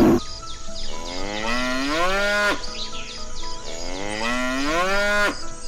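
Cattle mooing: two long moos, each climbing in pitch and then cutting off, with a faint regular high chirping behind them.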